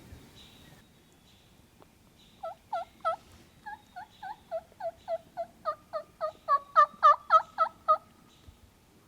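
Turkey yelping: a run of about twenty yelps at about four a second, growing louder toward the end.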